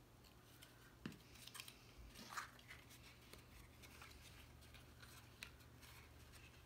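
Faint rustling and a few light taps of cardstock pieces being handled and pressed into place, mostly in the first half, with one more tap near the end, over a low steady hum.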